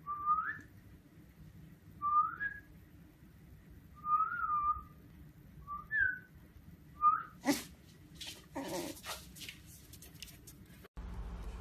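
A person whistling five short rising notes, about two seconds apart, to a fluffy malamute puppy. Then come a few knocks and rustling as the puppy gets up and comes to the camera.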